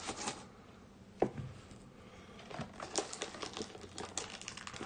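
Yu-Gi-Oh! booster box being opened by hand: small clicks and crinkles of cardboard and wrapping. There is one knock about a second in, then a run of quick light ticks in the second half.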